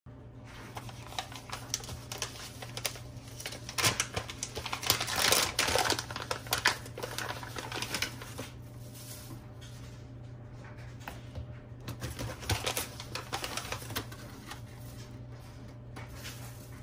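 Crinkling and crackling of a foil coffee bag being handled and opened, in quick irregular clicks that come in two bursts, over a low steady hum.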